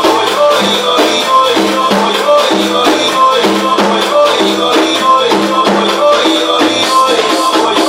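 Loud music with a steady, repeating beat and percussion, as a percussionist plays along with a DJ set.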